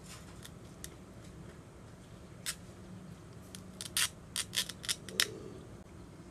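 Plastic food packaging being handled and opened by hand: a few light ticks, a sharp crackle, then a quick flurry of crinkling snaps near the end.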